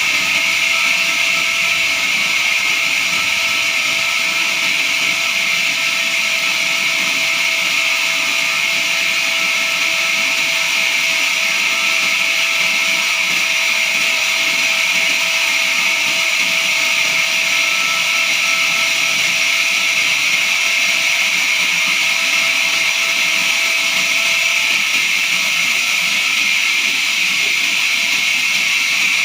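Horizontal band sawmill running steadily as its blade saws through a jackfruit log, a loud unbroken high whine that stays the same throughout.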